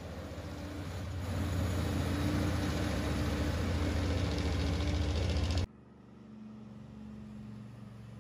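Diesel engine of a tipper semi-trailer truck running as it drives past close by, a loud low rumble that grows about a second in and holds steady. About five and a half seconds in it cuts off abruptly to the quieter sound of another truck's engine further off.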